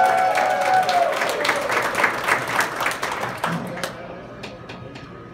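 Banquet audience applauding, the clapping thinning out after about four seconds to a few scattered claps.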